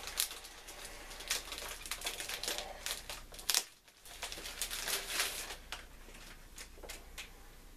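Plastic bag crinkling and rustling as a bagged stack of comic books between cardboard backing boards is handled and slid out, with many short crackles. The sound drops out briefly about three and a half seconds in.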